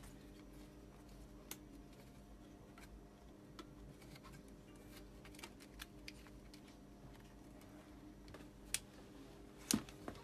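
Scattered light clicks and taps of a screwdriver and hands working the LCD panel's metal frame and its circuit board, with two sharper clicks near the end. A faint steady hum runs underneath.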